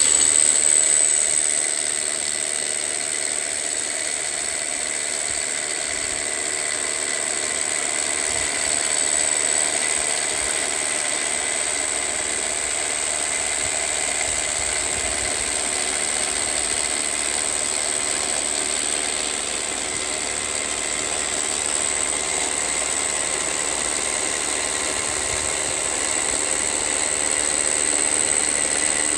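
Hammer drill running steadily without a break as its masonry bit bores a hole down into a concrete slab.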